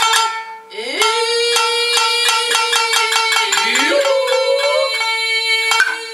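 Nagauta ensemble music: a shamisen plucked in a quick, even rhythm under a long held note that swoops up into place about a second in, after a brief lull.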